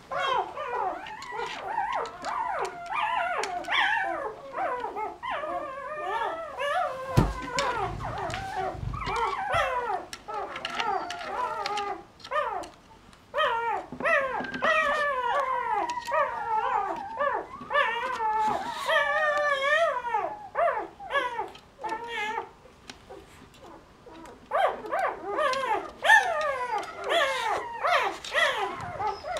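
A litter of young puppies whining and squealing, many wavering high cries overlapping at once, easing off for a few seconds about two-thirds of the way through before starting again.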